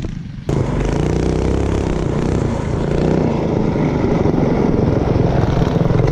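Motovox minibike's Predator single-cylinder engine running steadily, cutting in abruptly about half a second in.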